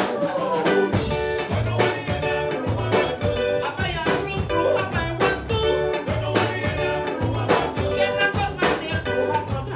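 Instrumental band music with a steady beat: held, pitched melody notes over regular drum strikes.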